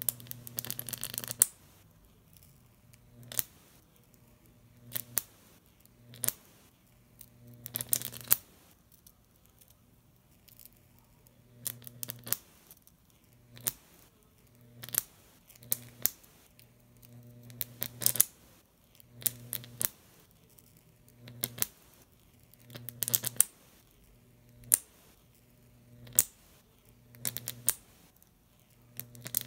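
Electric arc of a homemade Jacob's ladder, driven by a MOSFET high-voltage driver, striking between two copper wire electrodes. It comes in repeated bursts of crackling and buzzing with a low hum, each up to about a second long with sharp snaps, every one to two seconds with short quiet gaps.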